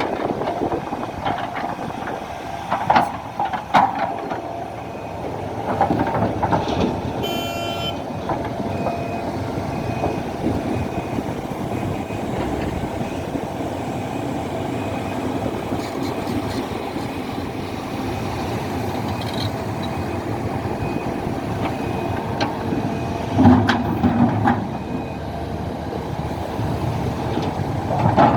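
SANY hydraulic excavator's diesel engine running under load, with several loud clanks of the bucket and material. For a few seconds in the middle a truck's reversing alarm beeps at an even pace.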